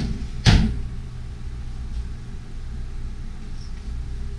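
A steady low hum with one loud, sharp knock about half a second in.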